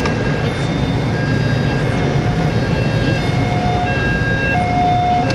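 Electronic siren sounding steady tones that switch pitch every half second to a second, over a steady low rumble.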